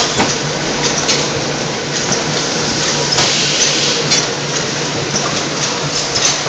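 Roboxis T-robot egg-tray case-packing machine running, a steady machine hum with repeated clicks and knocks as the gripper and conveyor move. There is a stronger hiss about three seconds in.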